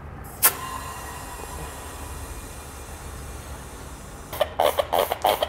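Compressed air hissing steadily into an Air Lift LoadLifter 5000 rubber air spring as it is inflated to about 50 psi, starting with a click about half a second in. Near the end comes a quick run of short spurts.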